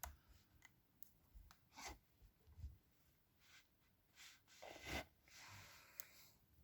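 Faint scrapes and light ticks of a hook pick working the pin stack of a 40 mm laminated padlock held under tension. The loudest scrape comes about five seconds in, followed by a sharp tick.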